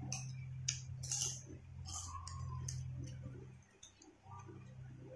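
Tortilla chips crunching as they are bitten and chewed close to the microphone: a run of about ten sharp, irregular crunches, most of them in the first three seconds, over a steady low hum.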